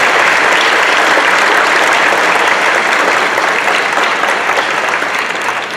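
Audience applauding steadily, starting to die down near the end.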